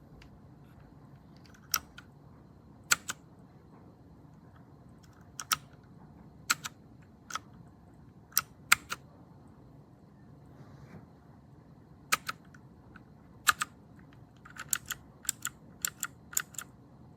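Keys pressed one at a time on a MageGee 75% mechanical keyboard with red linear switches: sharp clacks, singly and in pairs, spaced a second or more apart, then a quicker run of presses near the end.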